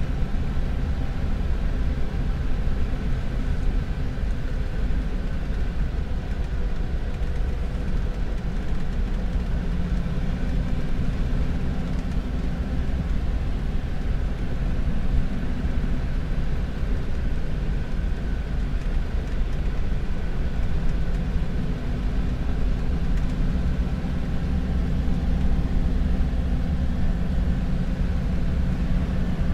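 A Ford's engine and road noise while it is driven at a steady speed: a low, even drone that does not change.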